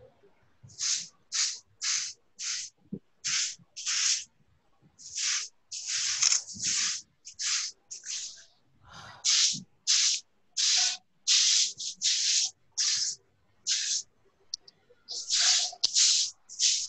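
Short bursts of hissing noise from a participant's open microphone on an online class call, one or two a second with gaps between. It is unwanted noise on the call, which the teacher calls a whistling sound coming out of the mic.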